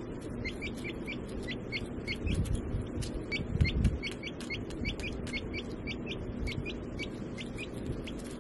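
Baby chick peeping steadily: short rising peeps, about two or three a second. A few low thumps come in about two to four seconds in.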